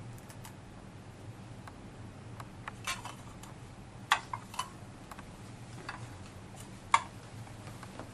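Plastic water bottles and caps handled and set down on a glass tabletop: a handful of sharp clicks and light knocks, the loudest about four seconds in and again about a second before the end, over a steady low hum.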